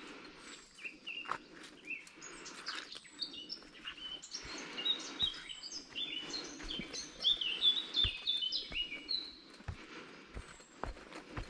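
Songbirds singing in a fast run of short, high chirping notes, over the steady crunch of a walker's footsteps.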